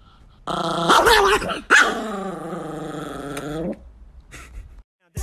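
Small white Chihuahua growling in one long, drawn-out vocalization of about three seconds that wavers and rises in pitch, then trails off.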